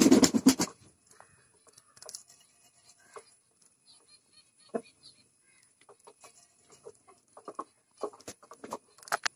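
Pigeon wings flapping in a loud flurry close by for under a second at the start, then scattered light taps and scuffles of pigeons pecking grain off the loft floor.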